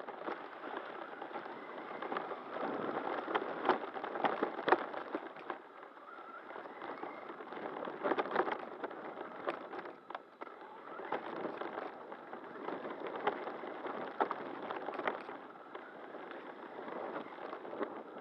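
Onboard sound of an electric RC monster truck driving over bumpy grass and dirt: a steady rushing hiss with irregular rattles and knocks from the chassis and suspension jolting over the rough ground, heavier in a few stretches.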